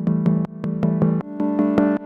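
Electronic synthesizer music with a steady pulse of notes, about four a second; the chord shifts about a second and a half in.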